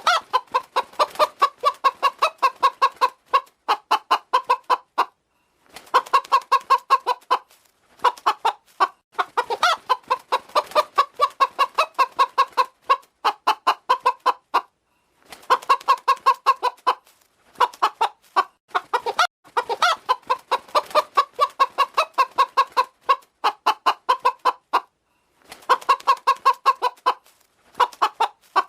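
Hen clucking in rapid runs of short, evenly spaced clucks, each run lasting a few seconds with brief pauses between them.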